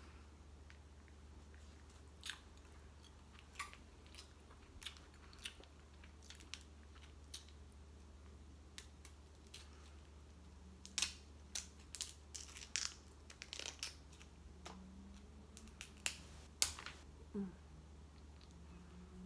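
Snow crab shell being cracked and picked apart by hand, with chewing: scattered sharp snaps and clicks that come thicker and faster in the second half. A steady low hum runs underneath.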